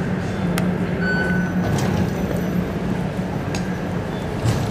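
Steady low hum of an underground metro station concourse, with a few scattered sharp clicks and one short, high electronic beep about a second in.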